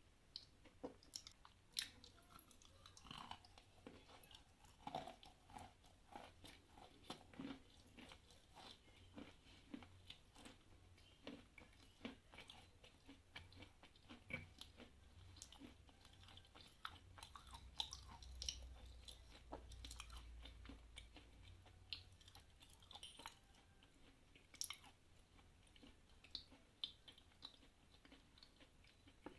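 A person chewing Khrapovsky chalk: many faint, irregular crunches and crackles as its small grains break between the teeth.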